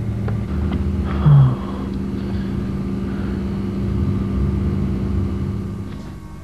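A steady low hum with rumbling underneath, and one short low sound about a second in.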